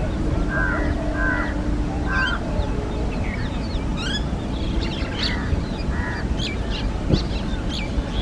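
Birds calling: short, repeated calls a few times in the first two seconds and once more later, with quick high chirps from smaller birds through the rest, over a steady low background rumble.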